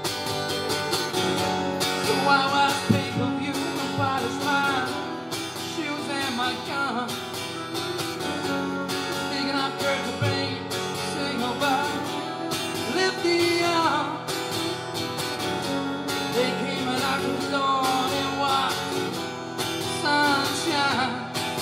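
Live duo of two guitars: an electric lead guitar plays bending, gliding melodic lines over a second guitar strumming chords.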